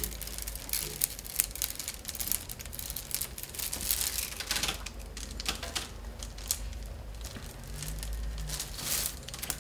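Peeled willow rods rustling and clicking against one another as they are picked out of a bundle by hand, in a steady run of small irregular ticks and scrapes.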